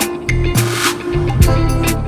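Background music with a steady beat, drums and bass guitar.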